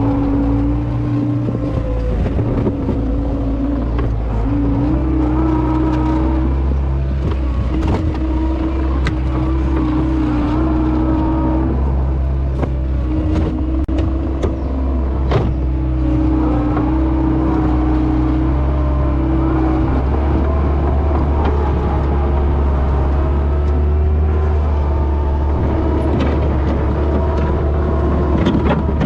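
Gator utility vehicle's engine running steadily while driving, its pitch shifting slightly up and down, with scattered light clicks and knocks.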